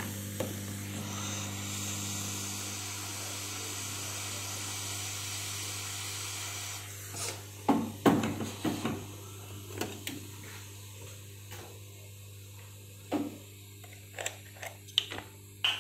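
Steady hiss of a hot-air rework gun blowing over a low hum, used to take a shorted IC off a motherboard. It stops about seven seconds in and is followed by several knocks and clicks as the board is handled.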